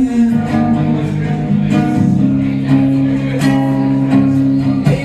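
Acoustic guitar strummed in sustained chords, an instrumental passage of a song.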